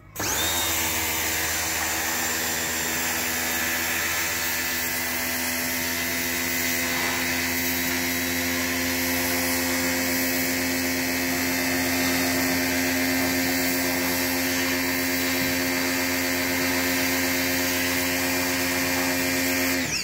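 Pressure washer running, a steady motor-and-pump whine under the hiss of its spray gun jetting water onto a car's door sill; the sound starts and cuts off suddenly.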